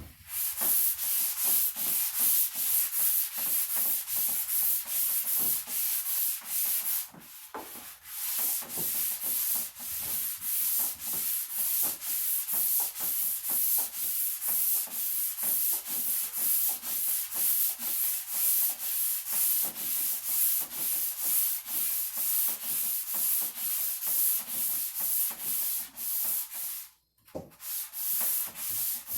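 Sandpaper scratching over the cedar top of a chest in quick, even back-and-forth strokes, about two a second, with a short break about seven seconds in and another near the end.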